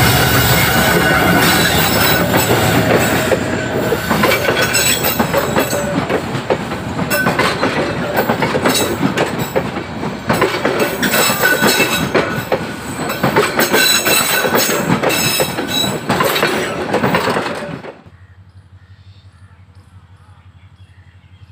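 Bangladesh Railway Lalmoni Express passenger coaches running past close by: a loud, dense clatter of wheels over rail joints with high metallic squealing. The sound drops away suddenly about eighteen seconds in as the last coach clears.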